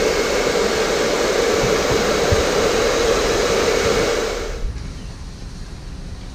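Handheld electric hair dryer running, a steady rushing hiss over a hum, blowing hot air to shrink heat-shrink tubing onto a cable. It cuts off about four and a half seconds in.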